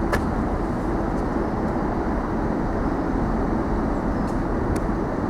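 Diesel locomotive's engine running steadily while standing, with a sharp click just after the start and a fainter one near the end.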